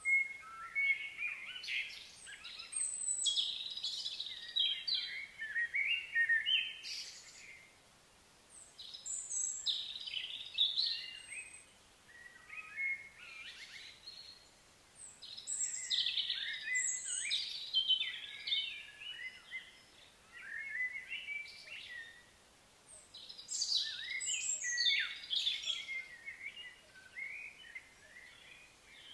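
Songbirds singing in bouts of quick, varied, twittering high-pitched phrases, each bout several seconds long with short pauses between them.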